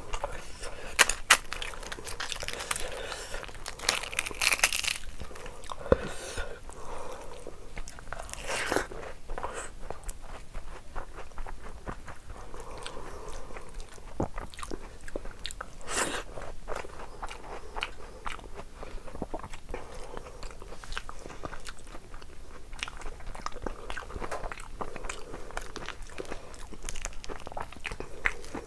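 Eating sounds: a person chewing with many small wet clicks and smacks. Fingers mix rice and curry on a steel plate.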